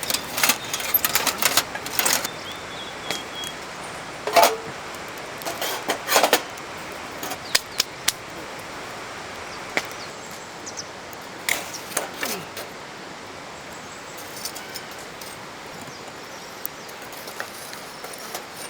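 Irregular clinks and knocks of hard objects being handled, most of them in the first two-thirds, over a steady background hiss.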